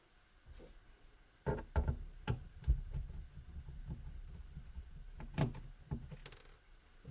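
Scattered sharp clicks and light knocks, about six in two clusters, from a screwdriver and hands working on the plastic bottom case of an Acer Aspire 4810T laptop as the screws around its edge are taken out.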